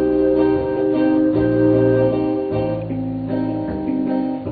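Acoustic guitar chords ringing in the pause between sung lines of a slow song, moving to a new chord every second or so.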